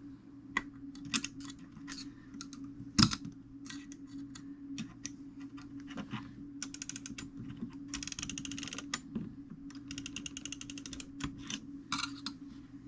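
Fusee clock movement being wound by hand as its brass wire is laid onto the fusee cone: scattered clicks and taps, with three short runs of rapid ratchet clicking in the second half, over a steady low hum.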